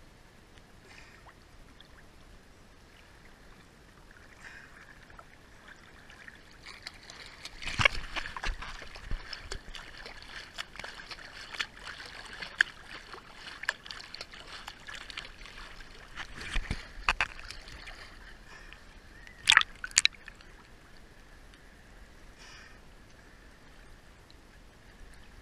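Sea water sloshing and splashing, with many small clicks, building up about a third of the way in and easing off later. Two short, sharp sounds that fall steeply in pitch come close together about three-quarters through.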